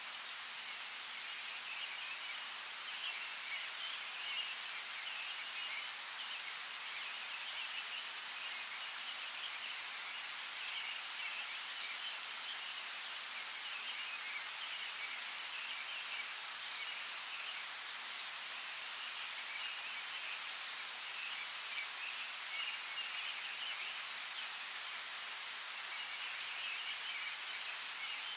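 Steady rainfall hissing, with individual drops ticking sharply here and there. High, fluttering chirps of birds come and go behind it.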